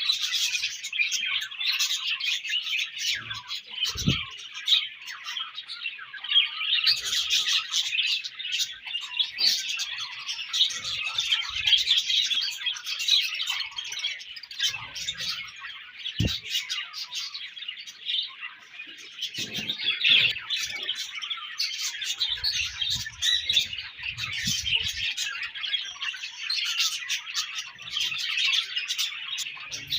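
A colony of budgerigars chirping and chattering continuously, many birds overlapping at once. Two brief low thumps stand out, about four seconds in and near the middle.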